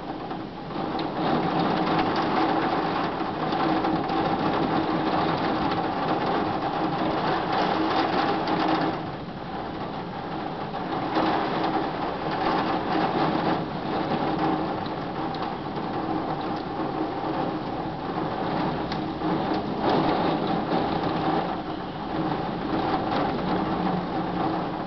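Heavy thunderstorm downpour: rain clattering densely and steadily on a hard surface, with a steady hum underneath. It eases about nine seconds in and builds again a couple of seconds later.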